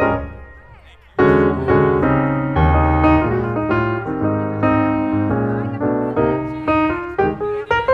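Background piano music. It fades down through the first second, then comes back in sharply with chords and a melody.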